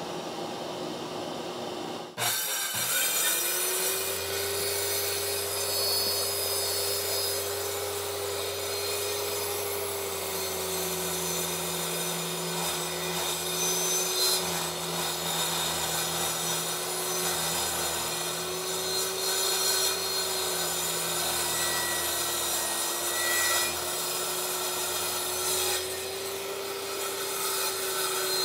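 Circular saw starting up about two seconds in, its motor rising to a steady whine, then cutting steadily along pine floorboards. A shop vac hooked to the saw runs underneath, drawing off the dust.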